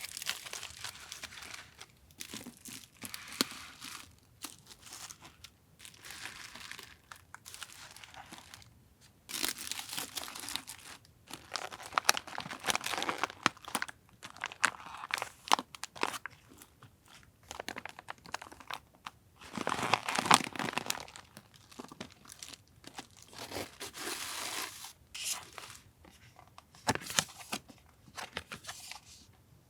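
Paper and plastic packaging being handled close up, crinkling and tearing in irregular bursts with short pauses. There are louder stretches about ten seconds in and again around twenty seconds.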